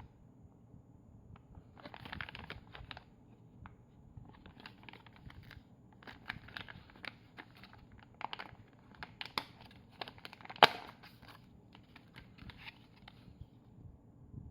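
Packaging being handled and crinkled in irregular rustling spells with small clicks, and one sharp snap about ten and a half seconds in, over a faint steady hum.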